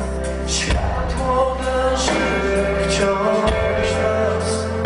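A live pop-rock band playing through a PA: a male singer over electric guitars, bass and drums. The bass note changes about three and a half seconds in.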